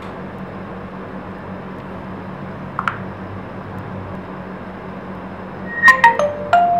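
Steady low hum with a single faint click about three seconds in, then near the end a short chime of quick stepped notes from a Nokia X phone's speaker: its startup sound as it reboots after installing a software update.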